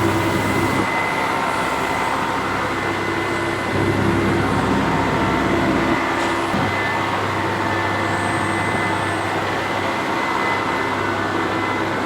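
Heckert CWK 400 D horizontal machining centre running: a steady machine hum with a thin high whine, a little louder for a couple of seconds near the middle.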